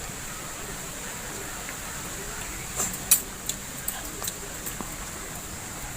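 Several short sharp clicks, the loudest about three seconds in, over a steady background hiss.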